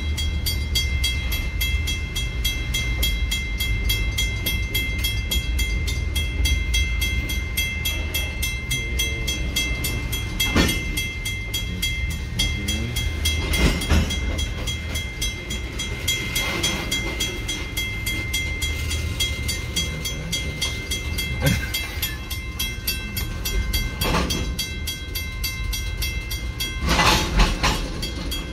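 Freight train of CSX open-top gondola cars rolling slowly past a road crossing, heard from inside a stopped car: a steady rumble of wheels on rail, with a handful of short sharp sounds from the cars, the loudest near the end.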